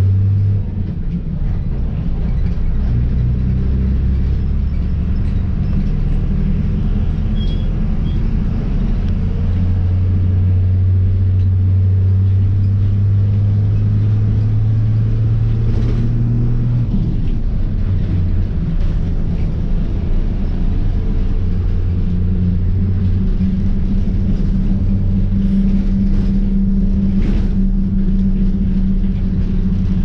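Moving bus's diesel engine and road noise: a steady low rumble whose engine note steps up and down several times as it changes speed, with a few faint rattles.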